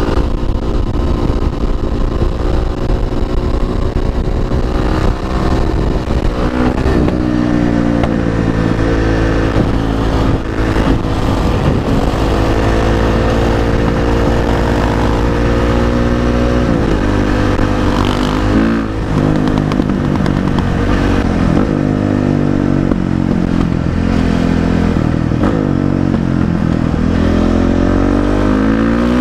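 Beta 500 RS single-cylinder four-stroke engine through an FMF PowerCore 4 exhaust, ridden under throttle. It rises and drops in pitch with the throttle changes early on, holds a long steady run in the middle with two brief drops, and revs up again near the end.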